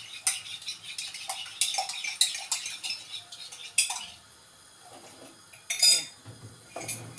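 Teaspoon clinking rapidly against a ceramic mug while stirring a cornstarch slurry, for about four seconds. Near the end comes a louder clatter of kitchenware.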